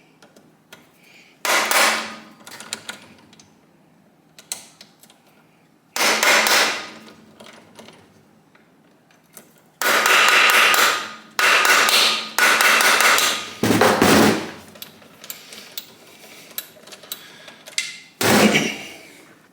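Repeated bursts of rapid metallic hammering on a Kawasaki KZ1000 engine during teardown, about seven bursts of roughly a second each, several of them close together in the middle.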